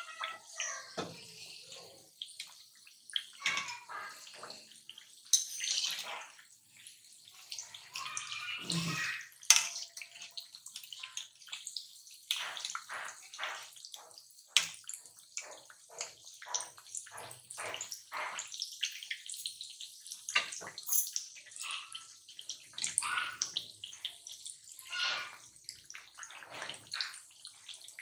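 Moong dal kachoris deep-frying in hot oil on a low flame: a steady sizzle with irregular crackles, a few of them louder.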